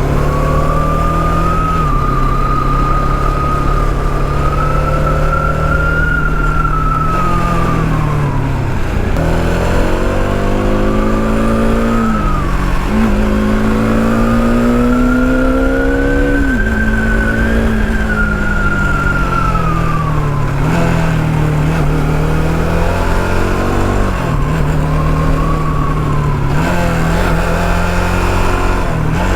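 Motorcycle engine running under way, its revs climbing and then dropping sharply several times as the rider changes speed on the road.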